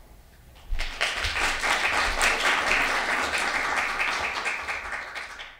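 Audience applauding: a dense patter of many hands clapping that starts about a second in and fades out near the end.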